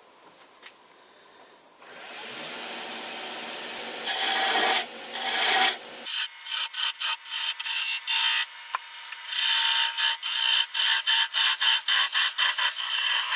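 A parting tool cutting into wood spinning on a lathe, parting off a turned piece. The scraping starts about two seconds in, gets louder about four seconds in, and over the second half comes in short, choppy strokes.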